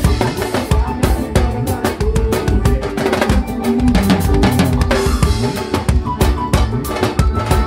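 Live band playing instrumental music: a drum kit with a steady run of bass-drum and snare hits, over electric bass and a piano accordion holding sustained chords.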